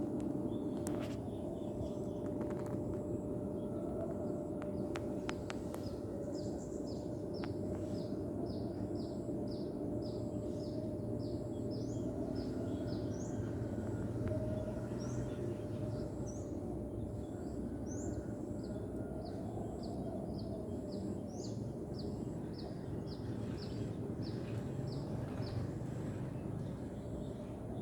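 A small bird chirping over steady low background noise, with short, high, falling chirps about twice a second from a few seconds in until near the end.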